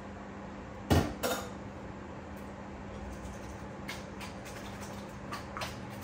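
Stainless steel cooking pot knocking and clinking as it is handled on the stove: two loud metallic knocks about a second in, then a few lighter clinks, over a steady low hum.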